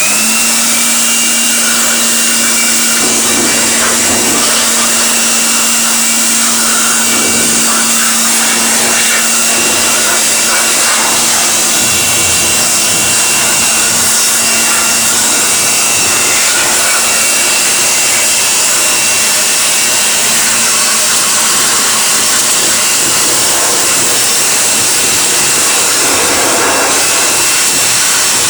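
Electric air blower switched on with a short rising whine, then running steadily at full speed with a high whine over a low hum, blowing dust out of a refrigerator's clogged heat-exchanger coil.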